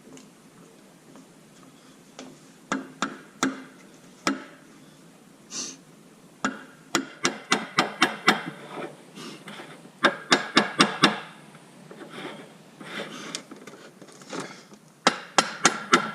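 Hammer blows on the metal shaft of a Magnuson TVS-2300 supercharger, struck to drive the shaft out during disassembly. A few single strikes come first, then several quick runs of about four blows a second, each with a short metallic ring.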